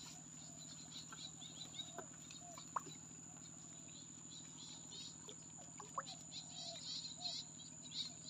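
Quiet outdoor evening ambience: a steady high-pitched insect drone with many short bird chirps over a low steady hum, and a few faint ticks.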